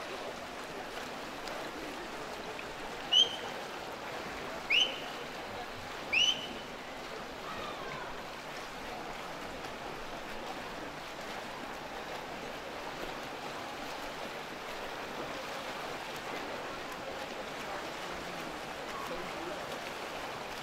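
Steady wash of swimming-pool noise: water splashing from the swimmers and a distant murmur around the pool. A few seconds in come three short, sharp, high-pitched whistles that rise in pitch, a second or so apart.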